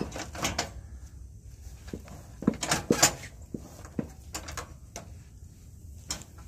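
Scattered clicks, knocks and clunks from the parts of a Troy-Bilt riding lawn mower being handled, with the sharpest knocks bunched together about halfway through.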